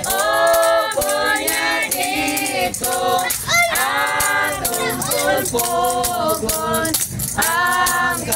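A group of people singing a song together loudly, with a tambourine jingling in a steady beat and hands clapping along.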